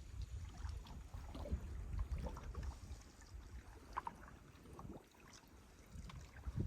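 Canoe being paddled: scattered small splashes and drips of water off the paddle, over a steady low rumble of wind on the microphone.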